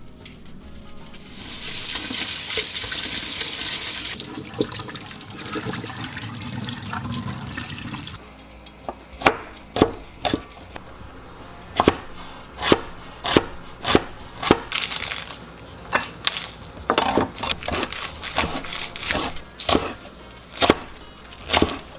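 Tap water running into a sink for a few seconds, then quieter sloshing, followed by a long run of sharp irregular clicks and knocks.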